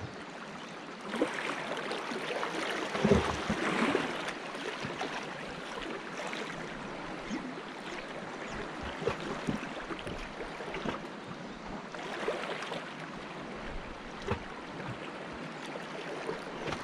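Small waves lapping and sloshing against shoreline rocks, an uneven wash with many small irregular splashes, busiest for a few seconds near the start.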